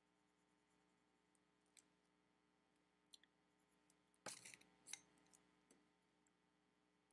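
Near silence, with a few faint clicks and a short cluster of light taps about four seconds in, from colored pencils being handled over the paper.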